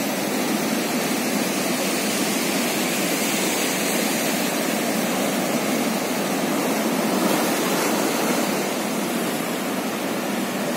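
Heavy storm surf breaking over rocks and a seawall, a steady rush of churning water with a slight swell about two thirds of the way through. The sea is still rough after Hurricane Ian has passed.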